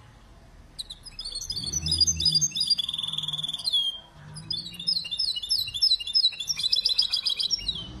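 Mule (canary × European goldfinch hybrid) singing: fast twittering phrases and trills that start about a second in, break off briefly around the middle, then resume with rapid repeated notes until near the end.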